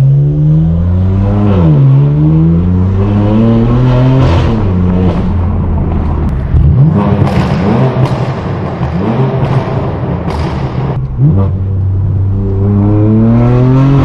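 Straight-piped BMW M4 F82's twin-turbo inline-six accelerating hard through the gears, its pitch climbing in pulls and dropping at each upshift. In the middle comes a stretch of sharp pops and crackles from the exhaust before it pulls hard again near the end.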